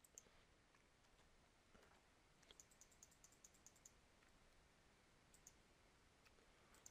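Faint computer keyboard keystrokes and mouse clicks in an otherwise near-silent room: a quick run of about eight taps in the middle, with a few single clicks around it.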